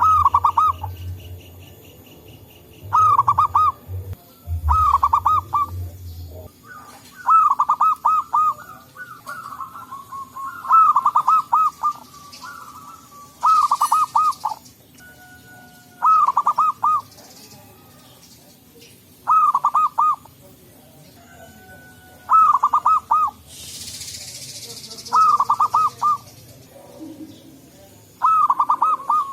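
Zebra dove (perkutut) singing its rapid, rolling coo. Each short phrase is a quick run of notes, repeated every two to three seconds.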